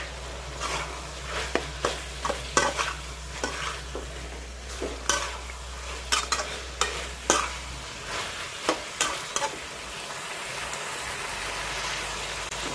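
Metal spatula scraping and clanking against a steel wok as pork and vegetables are stir-fried, over a steady sizzle. The clanks come irregularly, several a second at times.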